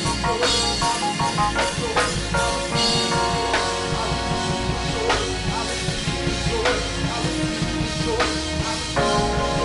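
Band music with a drum kit keeping a steady beat under held chords.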